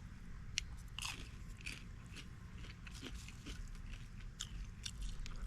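A person chewing crunchy deep-fried, flour-battered mole crabs (sand fleas), with irregular crisp crunches and clicks.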